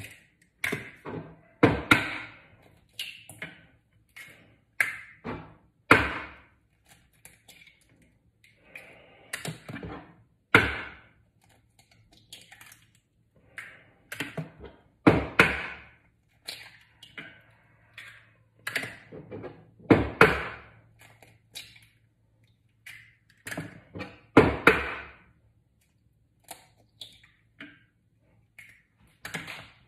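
Eggs being cracked one after another against a bowl: a sharp knock every few seconds, with lighter taps and clicks of shell in between.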